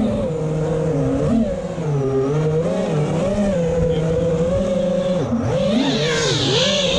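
FPV quadcopter's brushless motors and propellers whining, the pitch sliding up and down again and again with the throttle.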